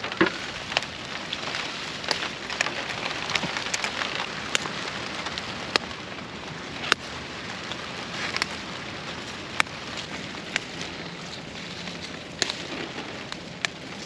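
Steady rain falling on a pepper field: a continuous hiss with sharp ticks about once a second.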